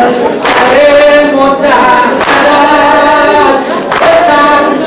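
A crowd of voices singing a chant together in unison, punctuated by sharp slaps every second or two.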